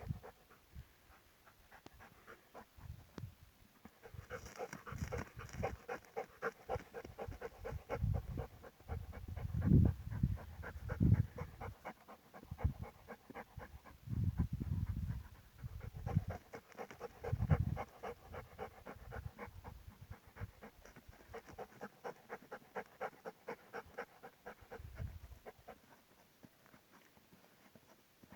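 A dog panting rapidly and rhythmically, with a few louder low thumps in the middle.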